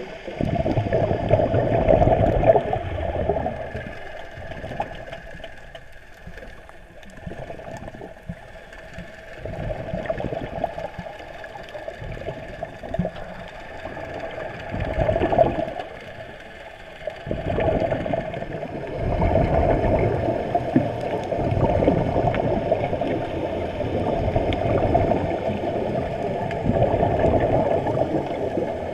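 Underwater gurgling and bubbling of air exhaled from divers' breathing regulators, heard muffled through the camera's underwater housing, swelling and fading in surges.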